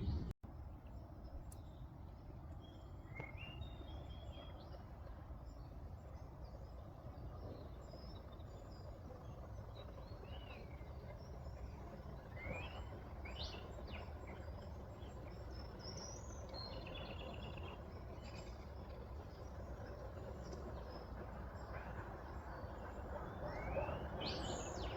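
Small birds chirping, with short rising and falling calls scattered throughout and a louder call near the end, over steady outdoor background noise.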